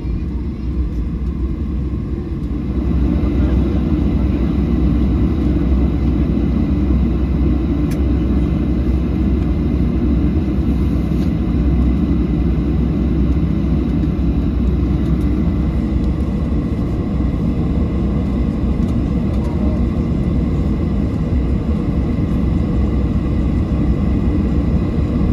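Steady low jet-engine rumble heard inside the cabin of a Boeing 737-700 moving on the ground after landing. It grows louder about two and a half seconds in, then holds steady.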